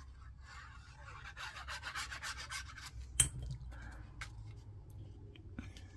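Cardstock paper rubbing and sliding under the hands during gluing, with one sharp tap a little past three seconds in.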